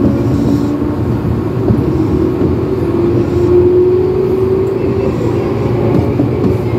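Tobu Tojo Line electric commuter train pulling out of a station, heard from inside the car. A steady running rumble with a motor whine that rises slowly in pitch as the train picks up speed.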